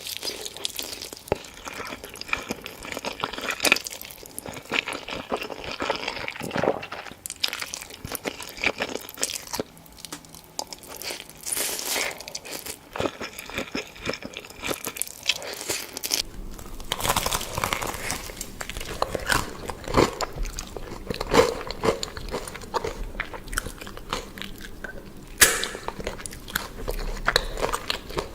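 Close-miked eating of crunchy food: repeated bites and crunching chews, irregular and dense, with one especially sharp crunch near the end.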